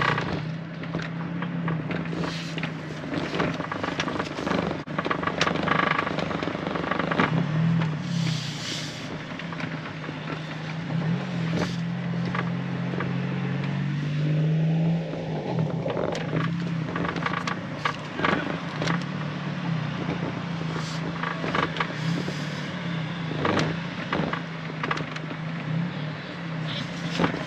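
Car engine running steadily while under way, its drone shifting slightly in pitch, with scattered short clicks and knocks.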